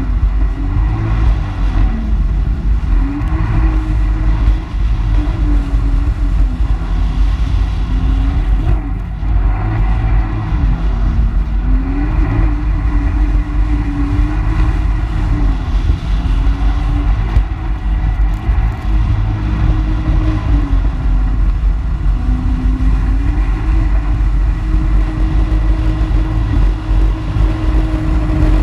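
Personal watercraft engine running at speed, its pitch rising and falling several times, over a steady rush of churned water.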